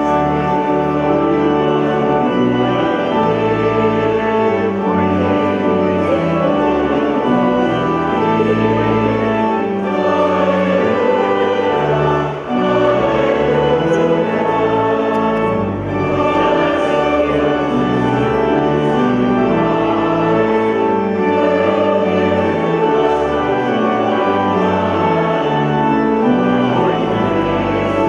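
Choir singing in a church with organ accompaniment, sustained notes over changing low bass notes.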